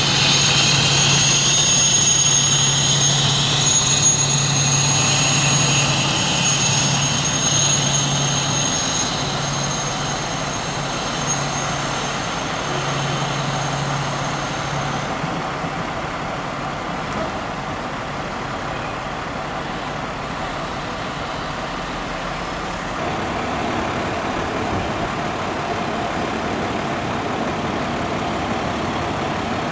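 Diesel fire engines idling and running, a steady low engine drone. A steady high whine sits over it for about the first half and then stops.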